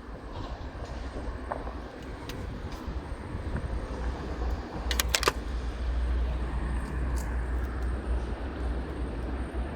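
Steady rumble of road traffic, growing slightly louder partway through, with two sharp clicks about five seconds in.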